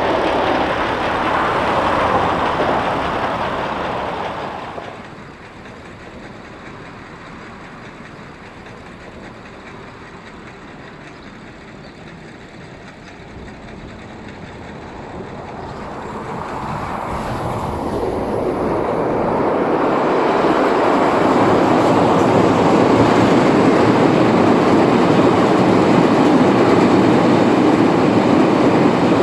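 Train running on the rails with a broad rushing noise. The noise drops away about five seconds in, then builds steadily again from about fourteen seconds as a train draws near, and it is loud from about twenty seconds on.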